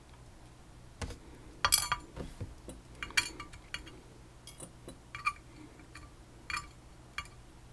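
Small metal clinks and clicks as pins are picked out of a Tesa TK100 lock cylinder with tweezers: about seven irregular light taps, the sharpest a little under two seconds in.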